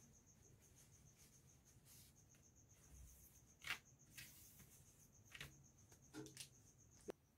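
Faint handling sounds of a fabric bralette being smoothed and laid flat on paper: a few soft rustles and taps in the second half, the sharpest about three and a half seconds in. Under them a cricket chirps in a faint, steady pulse.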